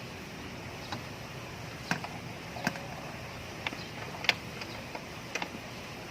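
Irregular light clicks and knocks, some seven or eight at uneven gaps, the loudest a little after four seconds in, over a steady background noise.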